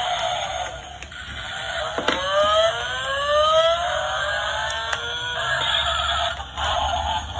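The electric motor of a toy RC car starts with a click and whines up steadily in pitch for about three seconds, then stops.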